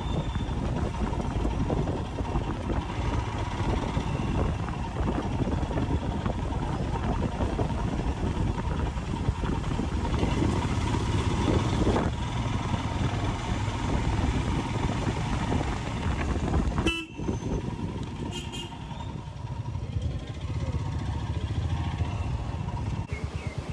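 Royal Enfield Himalayan 411 single-cylinder motorcycle engine running on the move, with wind and road noise, heard from the rider's seat. A couple of short horn toots sound about two-thirds of the way through.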